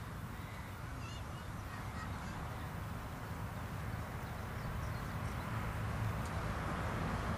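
Outdoor ambience: a steady low rumble, with a few brief, faint bird calls about one and two seconds in.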